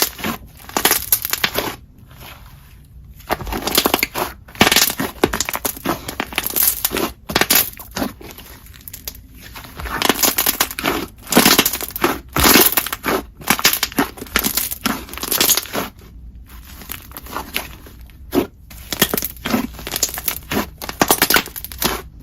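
Slime being squished and pressed by hand, giving dense runs of sticky clicks and pops in repeated bursts, with short quieter gaps between presses.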